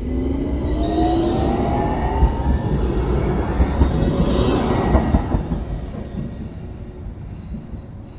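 Articulated electric tram passing close by, its motors giving a whine that rises in pitch over the first couple of seconds, with wheel rumble on the rails and a few knocks. The sound fades as the tram moves away.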